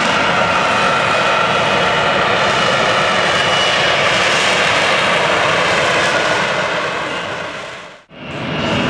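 F-35B fighter jet hovering, its jet engine and lift fan giving a loud, steady roar with a high whine on top. The sound fades out briefly near the end and swells back in.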